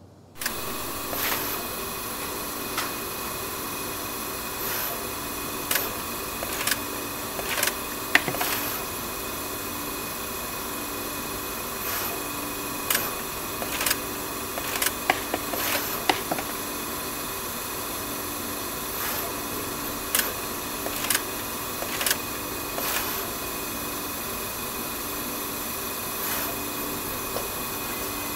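Pick-and-place machine running while picking up HDMI connectors: a steady mechanical hum with irregular sharp clicks and ticks, thicker in two bursts, as the head moves and grabs parts.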